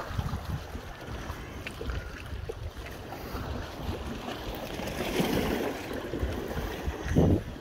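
Wind buffeting the microphone over small waves lapping against the rocks of a stone breakwater, with a louder rush near the end.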